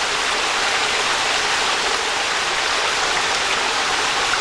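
Water of a small creek waterfall pouring and splashing over rocks, a steady rushing hiss.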